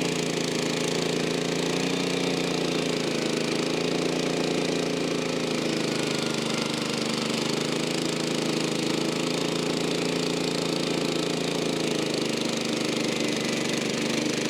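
An engine running steadily at a constant speed, its pitch wavering only slightly.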